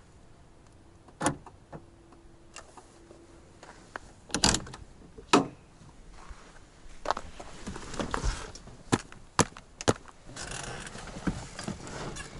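A string of sharp clicks and knocks, about eight spread unevenly, then rustling near the end: things being handled inside a car.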